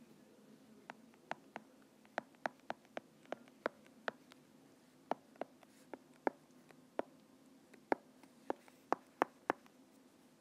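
A stylus tip tapping and clicking on a tablet screen while writing by hand: about twenty short, sharp clicks at an uneven pace, sometimes two or three a second, over a faint steady background hum.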